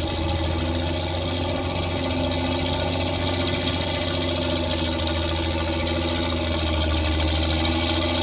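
Fiat 683 N truck's diesel engine running steadily.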